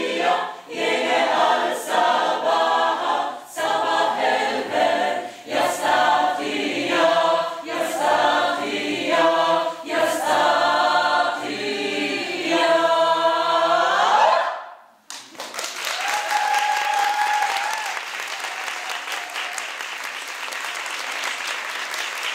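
Mixed choir singing an Egyptian song in Arabic, a cappella, ending on a long held chord about fourteen seconds in. After a brief pause the audience applauds steadily.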